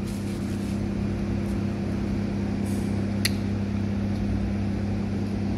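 Steady low machine hum holding the same pitch throughout, with a single small click about three seconds in.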